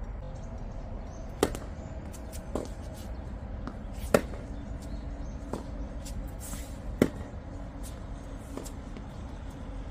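Tennis ball hits and bounces in a rally on a hard court: a serve, then about six sharp knocks of racket on ball and ball on court, the loudest about four and seven seconds in, over a low steady rumble.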